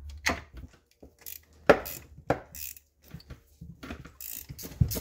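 Steel spanner clinking and knocking on a nut and bolt in irregular sharp clicks, the loudest about 1.7 seconds in, as the nut is tightened to pull a winch mounting plate down against the floor.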